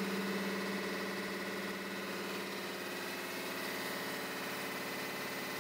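Air compressor running steadily, a continuous mechanical drone. A stronger low hum fades out over the first couple of seconds.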